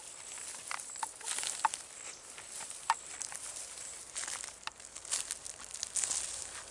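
Irregular crunching and rustling in dry leaf litter, like footsteps, with a few sharper snaps. A steady high insect buzz fades out about halfway through.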